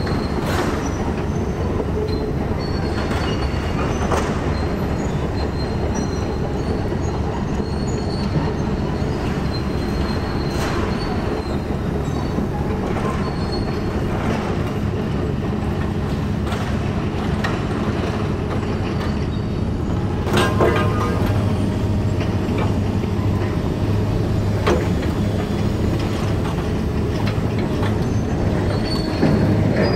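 Demolition excavators' diesel engines running steadily, with scattered metal clanks and short high squeals as steel roof sheeting and framework are torn and dropped; one louder clatter of metal comes about twenty seconds in.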